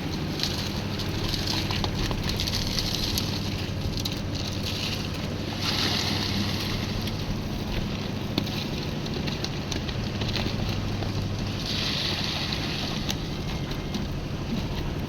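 Concrete mixer machine running steadily on its engine. Rough churning, rattling noise swells up a few times, about a second in, around six seconds in and around twelve seconds in.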